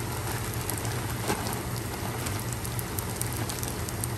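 Fried rice sizzling in a hot pan: a steady hiss dotted with small crackling pops, over a steady low hum.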